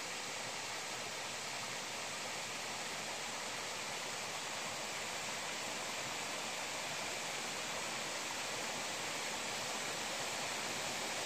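Small waterfalls spilling down a rock bluff and splashing into a river: a steady rushing hiss that slowly grows louder.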